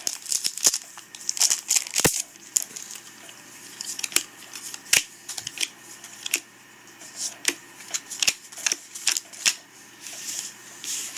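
Yu-Gi-Oh! trading cards being handled and flipped through one by one: sharp card snaps and short sliding swishes, irregular, about one a second.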